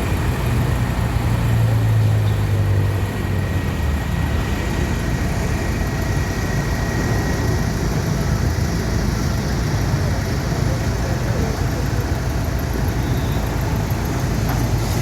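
A motor vehicle's engine running steadily with a low rumble, a little louder in the first three seconds, amid road traffic noise.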